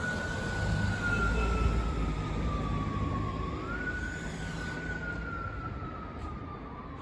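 Japanese police siren wailing: it rises quickly to its top pitch and then falls slowly, twice, over engine and road rumble, growing somewhat fainter toward the end.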